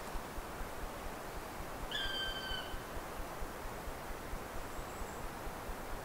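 Steady wind in a conifer forest, with low rumbling on the microphone. About two seconds in, a bird gives one short, clear call, a level tone with overtones lasting under a second.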